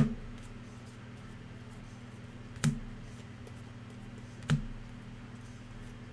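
Trading cards being handled on a table: three sharp clicks or taps, a couple of seconds apart, over a steady low hum.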